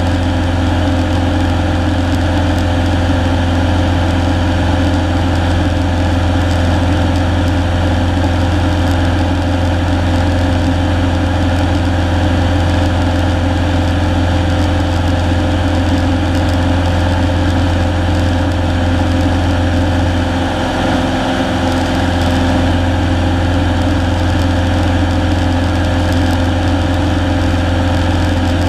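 Cessna single-engine light aircraft's piston engine and propeller running steadily in flight, a loud even drone heard inside the cabin. The level dips slightly for a moment about two-thirds of the way through.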